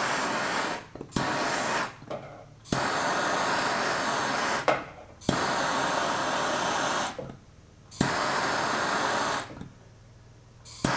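Handheld gas torch hissing in on-and-off bursts of one to two seconds, about five of them, some starting with a sharp click, as it heats a tinned steel panel to take body lead.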